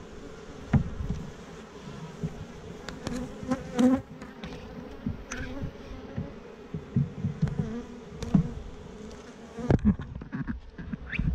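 Honeybee colony humming steadily in an open hive box, with scattered sharp knocks and scrapes as a metal hive tool pries at the wooden frames.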